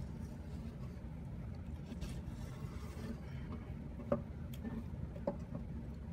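Kitchen knife working on a wooden cutting board while a pike conger fillet's belly bones are trimmed: a faint scrape, then two sharp knocks about four and five seconds in. A steady low hum runs underneath.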